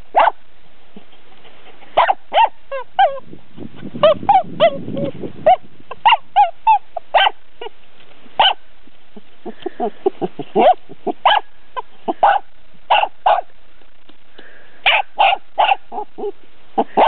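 A dog barking in irregular runs of short, sharp barks with pauses between them. A rough, low, noisy sound comes in about four to five seconds in.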